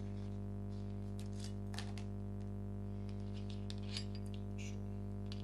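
Steady electrical buzz picked up by an action camera recording on its plugged-in power supply. Over it come a few light clicks and clinks of small metal Fuji K-series rod guides being handled and set down on a cloth-covered table, the sharpest about four seconds in.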